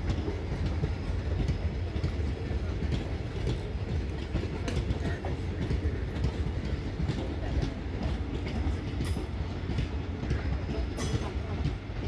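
Indian Railways ICF passenger coaches rolling past close by, a steady low rumble with the wheels clattering over the rail joints.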